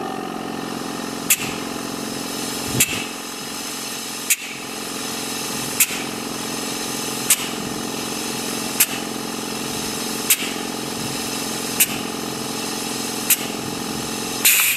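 Micro-particle high-pressure essence-injection head of a facial machine running: a steady motor hum with a short sharp pulse about every one and a half seconds, and a slightly longer, louder one near the end.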